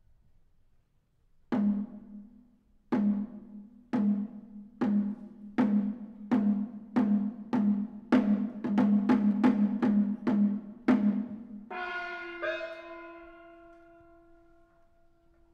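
Percussion strokes, each with a short ring, starting slowly and speeding up into a fast run. Then a hand-held Chinese gong is struck twice and left ringing with a long, steady tone.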